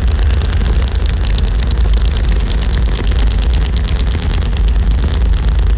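Harsh electronic noise music: a loud, unbroken wall of distorted noise over a heavy low rumble, with a rapid stuttering crackle in the high end.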